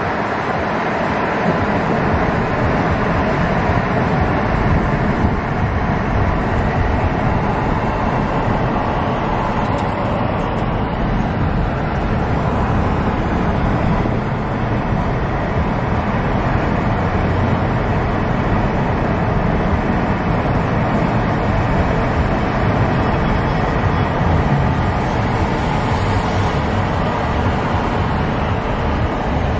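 Steady road noise of a car driving at speed on a highway, with tyre and engine noise and surrounding traffic.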